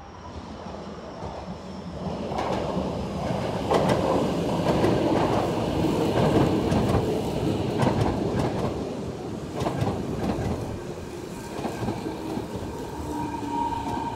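Kobe Municipal Subway electric train running into the station and slowing: a steady rumble with wheels clacking over rail joints, loudest as the cars pass, then easing off. A steady tone comes in near the end as it brakes.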